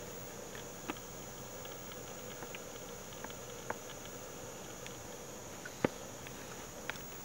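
Steady high-pitched insect chorus with a fainter low hum beneath it, and scattered short ticks here and there, the sharpest about six seconds in.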